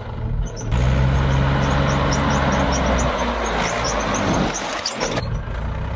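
Heavy diesel engine running, with a loud rushing hiss that starts about a second in and cuts off near the end; the engine note drops midway.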